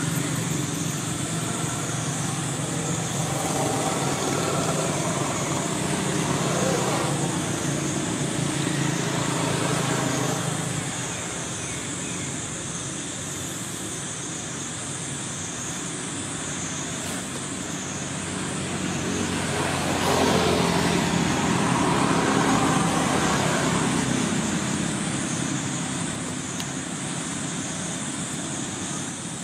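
Steady background noise of motor traffic with a low engine hum, swelling for a few seconds about twenty seconds in.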